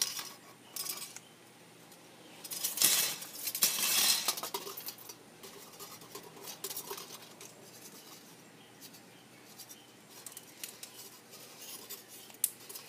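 Thin aluminium strip cut from a soda can crinkling and clicking as it is wound around a pencil into a spiral, with light metallic clinks. It is busiest about three to four seconds in, then quieter handling.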